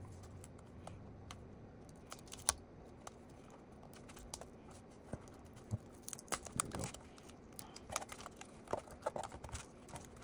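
Faint small clicks and taps as fingers work the plastic retainer and LVDS cable connector on the back of a laptop LCD panel. The clicks are scattered at first and come thicker in the second half.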